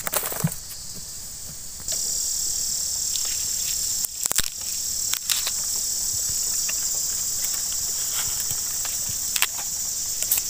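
Steady high-pitched insect drone in a bamboo thicket, switching on suddenly about two seconds in and holding throughout. A few sharp cracks and clicks of dry bamboo stems and leaves being handled sound over it, the loudest around four seconds in.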